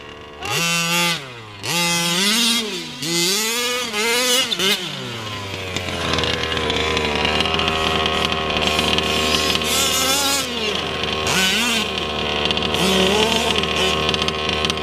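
Small two-stroke engine of a Losi 5ive-T 1/5-scale RC truck, revving up and down in quick rises and falls for the first five seconds. It then settles into a steady run, like an idle, for the rest.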